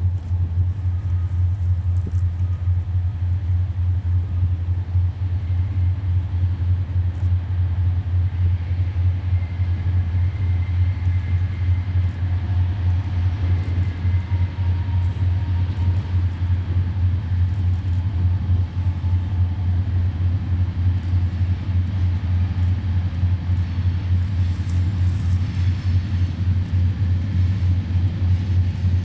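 Heavy wind buffeting the camera microphone: a loud, steady, fluttering low rumble.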